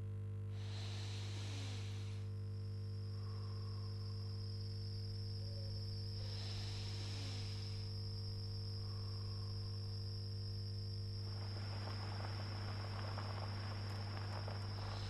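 Night ambience of a constant high cricket chirr over a low steady hum, with two slow breaths from a sleeper, one near the start and one about six seconds later. A crackling hiss comes in about eleven seconds in.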